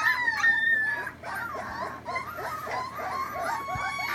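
A litter of three-week-old puppies crying and yelping together, many short high-pitched cries overlapping, with a few drawn out into longer whines.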